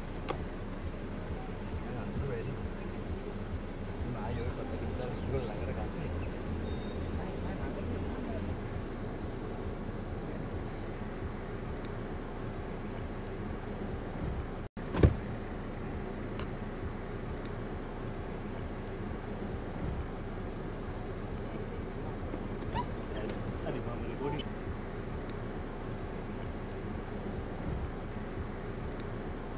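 Steady high-pitched chorus of insects over a low background rumble. A brief dropout about halfway is followed by one sharp click.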